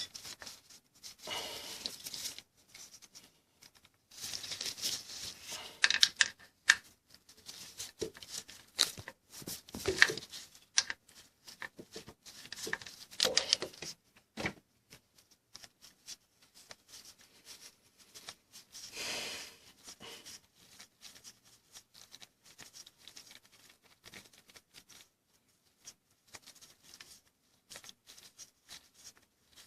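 Irregular clicking and scraping of hand tools against metal as the timing chain tensioner bolts on a Nissan Frontier engine are loosened, with one longer scrape about two-thirds of the way through.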